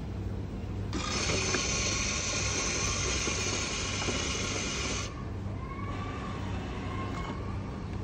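Self-service coffee machine hissing loudly while it brews the drink, starting about a second in and cutting off suddenly about four seconds later, over a steady low hum.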